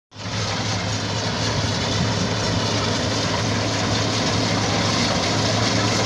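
Tracked rice combine harvester running steadily as it cuts through the paddy: a constant low engine hum under an even rushing noise.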